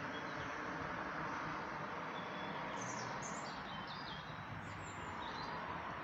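Birds chirping, a run of short high notes about halfway through, over a steady outdoor background hiss.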